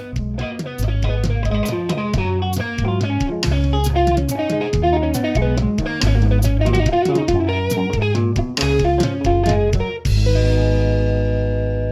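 Background music: guitar over bass and drum kit with a steady beat, ending about ten seconds in on a held chord that rings out and fades.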